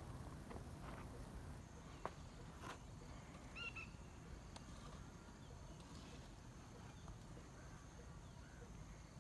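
Faint outdoor farm-field ambience with a steady low rumble and a few soft clicks, and a short bird chirp a little over a third of the way in.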